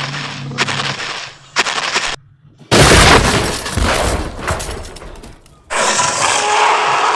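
Film sound effects of a dinosaur fight. After a brief silent gap, a sudden loud crash with a deep boom and breaking, shattering debris comes about three seconds in and fades over a couple of seconds. Another loud, noisy passage starts near six seconds.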